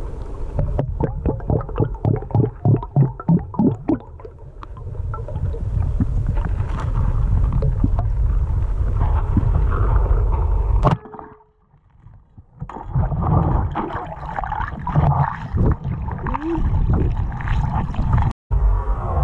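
Muffled underwater sound picked up through a submerged camera housing on a speargun: water rushing and bubbling, with a run of quick low knocks between about one and four seconds in and one sharp snap about eleven seconds in.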